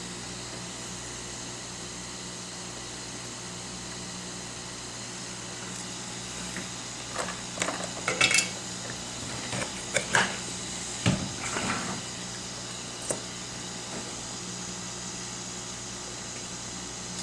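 Steady whir and hiss of a hot-air rework station's fan, with a scatter of small sharp metal clicks and taps from about six to fourteen seconds in as tools touch the phone's logic board.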